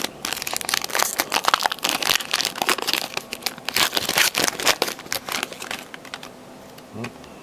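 Trading-card pack wrapper crinkling and tearing as a pack is opened, a dense run of crackles that dies down about six seconds in.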